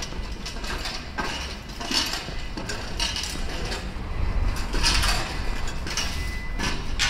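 Footsteps on a hard stone street, roughly one a second, over a low steady rumble.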